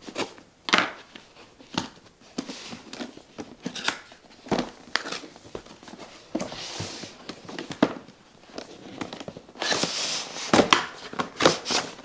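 A cardboard product box being opened: a knife slitting the tape seals, then stiff cardboard scraping and rustling as the inner box slides out of the sleeve, with scattered taps and knocks of the box against the counter. The loudest rustling comes about ten seconds in.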